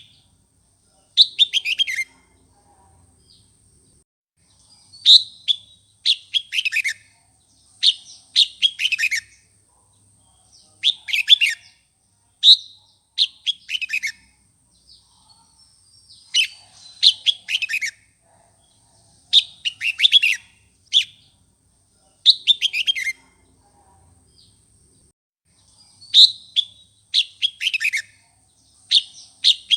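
Red-whiskered bulbul singing an intense fighting-style song, the kind used to provoke other bulbuls into singing. It gives short, quick chirpy phrases of about a second each, most sweeping downward, repeated every two seconds or so.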